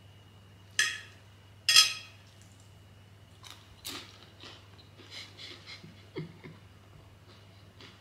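Flaky puff pastry crackling as it is broken apart, two crisp crunches about a second apart, followed by quieter chewing with small mouth clicks.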